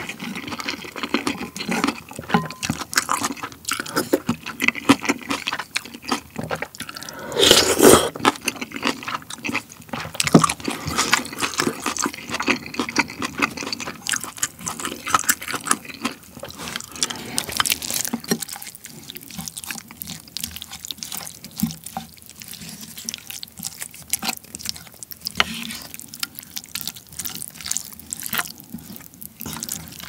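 Close-miked eating sounds of pork-belly kimchi jjigae: wet chewing and mouth sounds, slurps of broth from a wooden spoon, and the spoon working in the bowl. There is a loud noisy burst about eight seconds in, and the sounds grow quieter and sparser in the second half.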